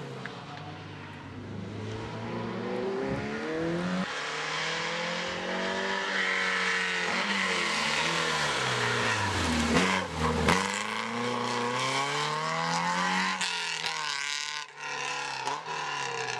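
Historic rally cars at speed. An Alfa Romeo coupé's engine revs up and drops back repeatedly as it climbs through the gears, then passes close about ten seconds in with a steep drop in pitch. Near the end a second rally car's engine comes in, revving as it approaches.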